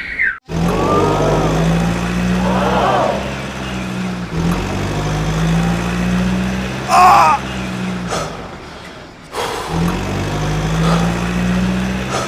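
Vehicle engine drone, steady and low, breaking off briefly about four seconds in and again near the three-quarter mark, with a short higher-pitched sound about seven seconds in.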